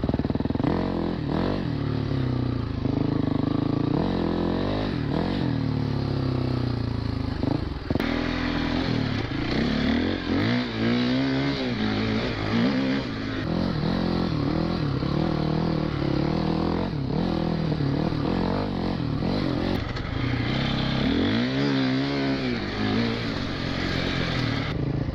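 Four-stroke enduro dirt bike engine revving up and falling back again and again as it is ridden hard on dirt.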